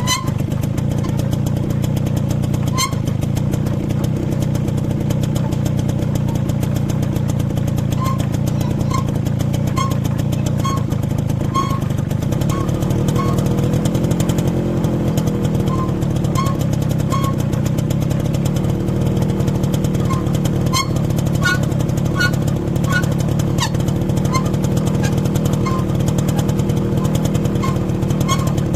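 Small motorcycle engine running while being ridden, its revs rising and falling once around the middle. Over it come short, repeated squeaks at irregular intervals from the rear drum brake: new brake shoes squeaking in the drum.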